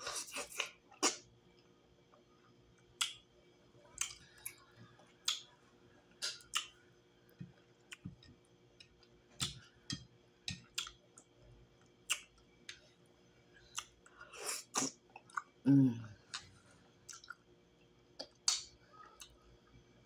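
Close-miked wet chewing and lip smacking of fufu with slimy ogbono soup, heard as scattered sharp clicks and smacks about once or twice a second. About three-quarters of the way through comes a short low throat sound, the loudest moment.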